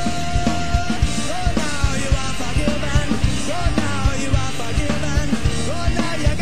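Rock music with a steady, driving drum beat and a wavering melodic lead line over it.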